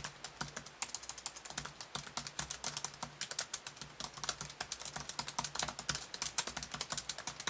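Samsung Series 9 (NT900X3B) laptop keyboard being typed on quickly and continuously: a rapid, uneven run of light key clicks, several a second, with a few brief pauses.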